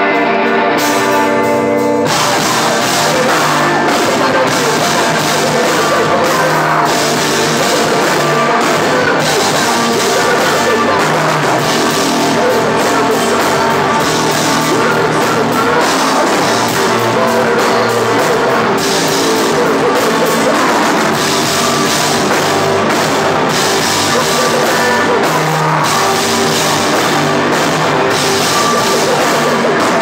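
Live rock band playing loud: ringing electric guitar notes, then about two seconds in the full band comes in with drum kit, cymbals and guitars and plays on.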